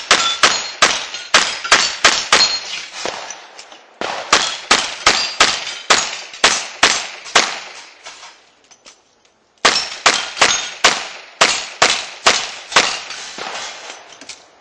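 Revolver fired very fast at steel plates: three rapid strings of shots, with a metallic ring from the steel on many hits. Each string runs about two to three and a half seconds, with a pause of about a second and a half between strings.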